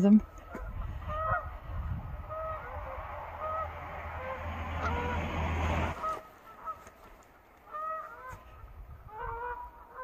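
A flock of Canada geese honking repeatedly, short two-note calls overlapping at irregular intervals. A steady rushing noise runs under the calls and cuts off suddenly about six seconds in.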